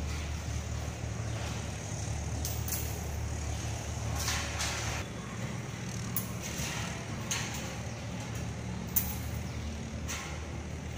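A steady low rumble of background noise, with short hissing and rustling sounds at uneven intervals.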